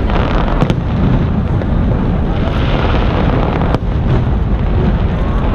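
Aerial fireworks booming in a continuous low rumble, with a couple of sharper pops.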